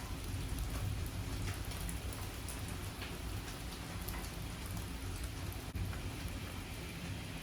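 Heavy rain falling steadily, with many individual drops hitting close by and a low rumble underneath.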